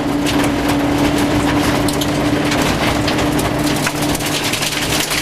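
Rover 214 rally car driven hard on gravel, heard from inside the car: the engine holds one steady note down a straight while stones rattle and click against the underbody.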